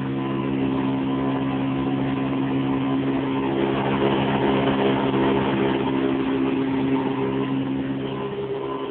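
Hoover Convertible U4389 upright vacuum cleaner running steadily, a smooth motor hum. The motor has had fresh work done on it and sounds much smoother.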